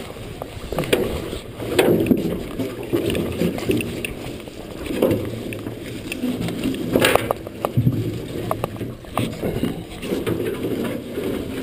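Muffled, irregular knocking and rustling from hand-hauling and picking a salmon gillnet in a boat, dulled by a waterproof camera case, with one louder sharp knock about seven seconds in.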